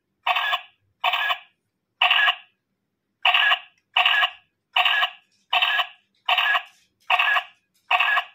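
A pink toy camera playing its short electronic sound effect each time its button is pressed, about ten times in a row, roughly one a second, with silence between them.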